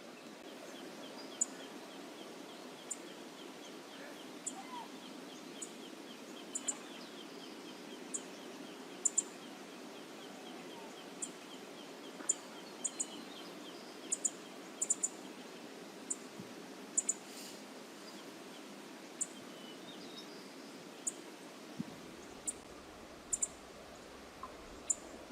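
Steady outdoor background noise with a low rushing haze, over which a small bird gives a fast run of short high notes, about four or five a second, for the first several seconds. Short, sharp high ticks sound now and then throughout, and a low rumble comes in near the end.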